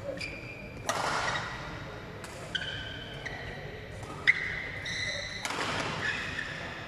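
Badminton rally: about four sharp racket strokes on a shuttlecock a second or two apart, the loudest about four seconds in, with short high squeaks of court shoes on the mat between strokes, echoing in a large sports hall.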